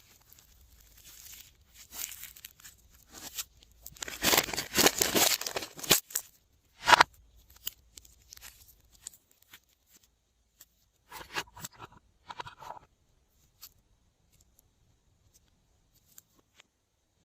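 Glossy slime being stretched, pulled apart and squished by hand, giving sticky crackling, tearing sounds. They come in irregular bursts, thickest about four to six seconds in with a sharp one near seven seconds, then a few softer ones around twelve seconds.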